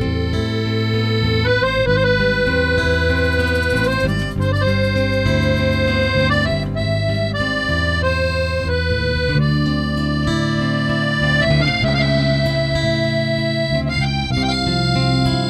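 Instrumental background music: a melody of held notes over a moving bass line.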